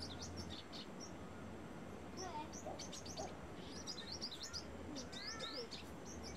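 Brown-throated sunbird calling: quick, high twittering chirps in short runs, broken by brief pauses.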